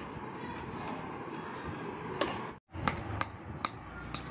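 Steady faint background hiss with a few light clicks and taps, mostly in the second half. The sound drops out completely for a moment about two and a half seconds in.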